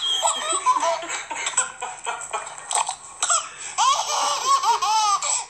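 Baby laughing hard in repeated high-pitched squealing bursts, with a louder run of squeals near the end.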